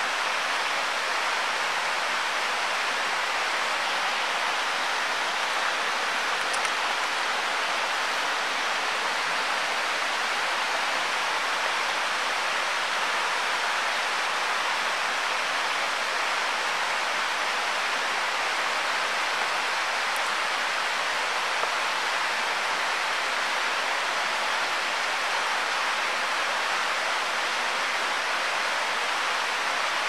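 Waterfall rushing, a steady, even hiss of falling water that does not change.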